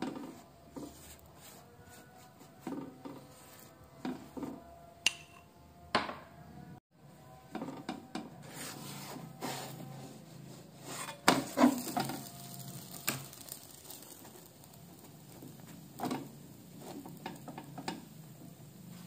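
A spatula and utensils knocking and scraping against a nonstick frying pan as pan-cooked pizza dough is worked loose and turned over: scattered sharp clicks over a light rubbing, with the loudest knocks about eleven to twelve seconds in.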